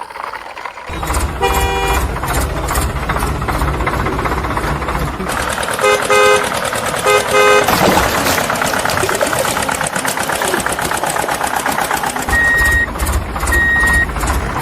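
A vehicle engine running steadily while a horn honks several times: once near two seconds in, two quick double toots around six and seven seconds, then two short high beeps near the end.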